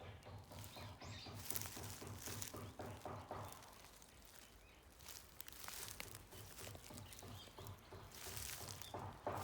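Faint outdoor ambience with soft rustling and crackling noise that swells and fades.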